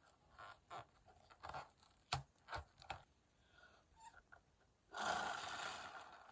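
Rubber balloon rubbed and stretched between the fingers as its neck is knotted, a run of short squeaks and rubs. About five seconds in, a long breath is blown into a new balloon to inflate it, the loudest sound, fading over a second or so.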